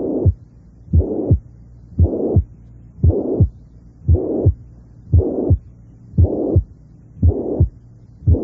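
Heartbeat heard through a stethoscope, about one beat a second, with a high-pitched, blowing systolic murmur filling the gap between the first and second heart sounds: the apical murmur of mitral regurgitation.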